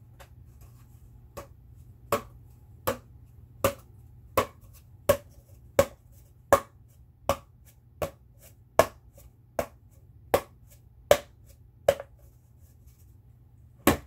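A steady series of sharp taps or snaps, about one every three quarters of a second, starting just over a second in and stopping around twelve seconds, then one last tap just before the end.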